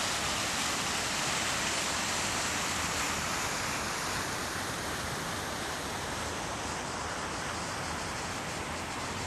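Fountain jets splashing into their basin: a steady rush of falling water that eases a little about halfway through.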